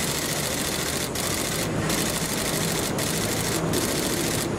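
Steady rumble and hiss of vehicle engines running, with no clear single event standing out.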